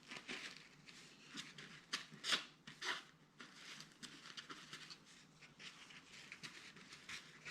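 Faint rustling and crinkling of kitchen towel being scrunched and handled, with a few short, louder scratchy strokes about two to three seconds in.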